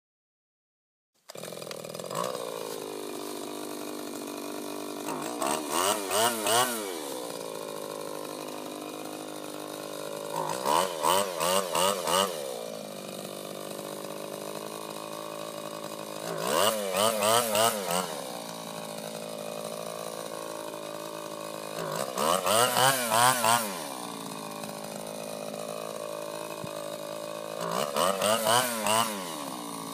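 Small gas engine of a handheld earth auger idling, then revved five times in clusters of quick throttle blips about every five to six seconds as the long auger shaft bores into the ground. The sound starts about a second in.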